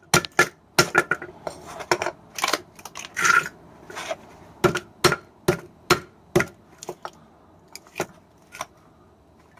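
Metal-on-metal hammer blows on a microwave oven transformer being broken open for its copper: a quick, irregular run of sharp ringing knocks that thins out over the last few seconds.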